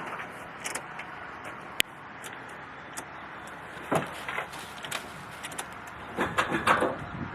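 Scattered clicks and short knocks, with one sharp click a little under two seconds in, and no engine cranking or running: a Chevrolet C10 pickup with a 350 small-block failing to start because its battery is dead.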